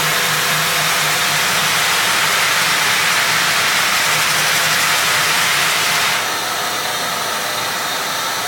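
Frank Spider floor sander running with 36-grit zirconia paper, grinding old glue and coatings off a timber floor: a steady loud hiss over a low pulsing hum. About six seconds in it drops a little in loudness and turns duller.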